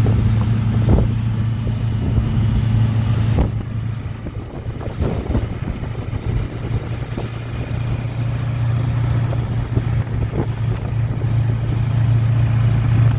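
Pickup truck engine working under load to climb out of deep sand, a steady low drone that drops off briefly about three and a half seconds in and builds again near the end, with scattered light clicks.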